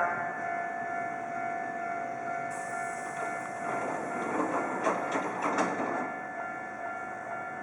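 Hankyu electric commuter train running on the track, its wheels clattering over rail joints in a cluster of sharp clicks about four to six seconds in, over a steady ringing of tones.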